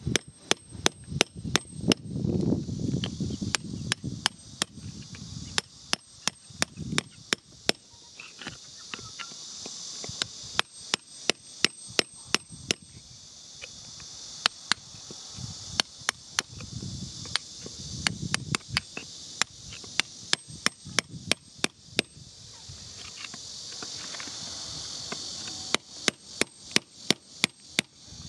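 A metal digging tool tapping and scraping into wet, stony soil in quick runs of sharp clicks, with a rougher crunch of earth now and then. Insects chirr steadily in the background.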